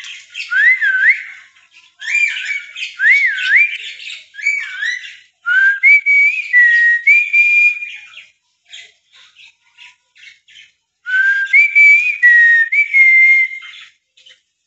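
Clear whistling in short phrases: quick up-and-down sweeps, then held notes stepping up and down, with a pause of scattered clicks in the middle. Faint scratchy chatter and clicks run underneath.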